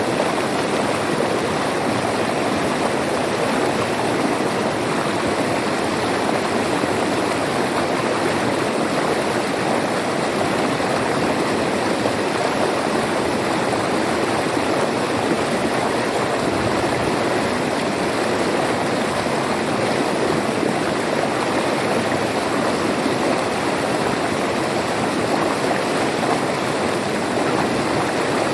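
River water flowing and rushing over rocks, a steady continuous wash with no breaks.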